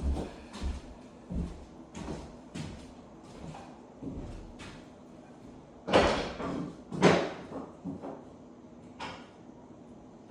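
Irregular knocks and thuds, a dozen or so spaced unevenly, with two much louder bangs about six and seven seconds in.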